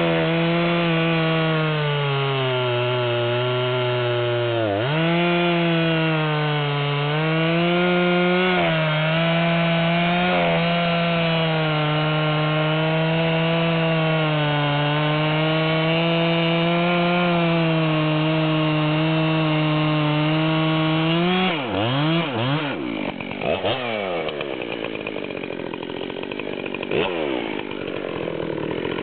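Dolmar PS-7310 73cc two-stroke chainsaw, with a mild muffler mod and a TriLink chisel chain, cutting through an oak log under load: a steady, loud engine note that dips briefly a few times as the chain bites. About 21 seconds in the cut ends; the engine revs up and falls away, then runs quieter with a few lighter revs.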